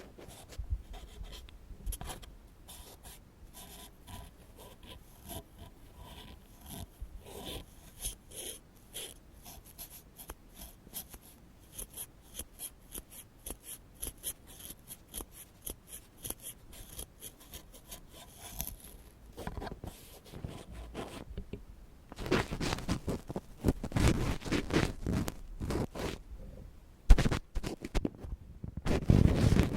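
ASMR ear-picking sounds: an ear pick scratching and scraping in quick strokes. About two-thirds of the way in it becomes louder, fuller rubbing and scraping.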